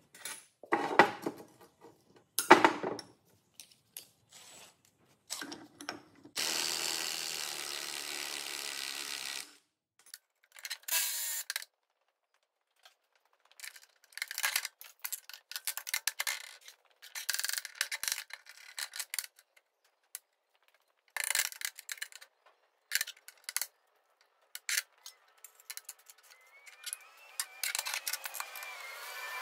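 DeWalt cordless impact driver run in short bursts and one steady run of about three seconds, undoing the bolts of a rusty bearing end plate, amid sharp clanks and rattles of steel parts and bolts handled on a steel bench; the loudest clanks are near the start.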